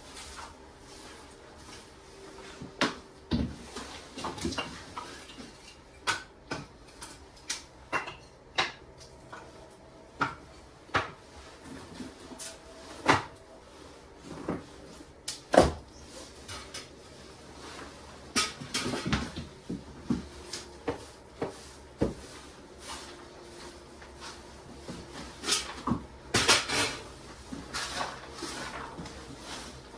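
Irregular knocks, clacks and clatters of objects being handled and set down inside a small wooden cabin, about one every second or so. A few short scraping rustles are mixed in.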